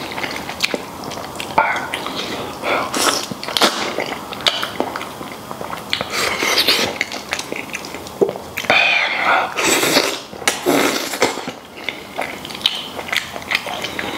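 Close-miked eating: biting and chewing braised beef trotter, a string of irregular wet smacks and sucking noises from the sticky, collagen-rich skin and tendon.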